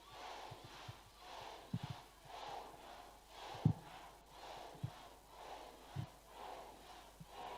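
A congregation shouting "amen" over and over in a steady rhythm, about twice a second, heard faintly and breathily at a distance from the microphone. A few soft low thuds come in between.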